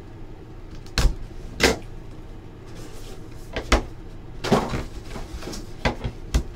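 Hands handling and opening a cardboard trading-card box on a table: a series of irregular knocks and taps of the box against the table, with a cluster of them in the second half.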